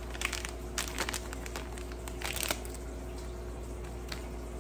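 A small paper coffee packet being handled and torn open, crinkling a few times in the first two and a half seconds, over a faint steady hum.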